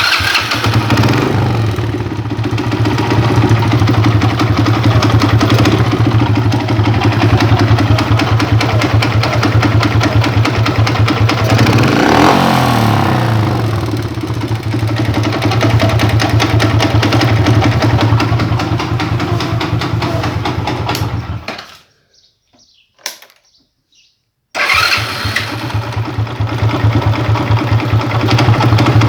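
Alpha moped's small single-cylinder four-stroke engine starting and running with a rapid knock, which the owner puts down to the clutch. It is revved up and back down about twelve seconds in, cuts out about twenty-one seconds in, and starts again about three seconds later.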